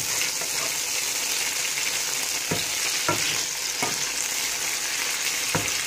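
Chicken thighs frying in oil in a nonstick pan with a steady sizzle, the braising water cooked off. A spatula knocks and scrapes against the pan about four times in the second half as the pieces are pushed around.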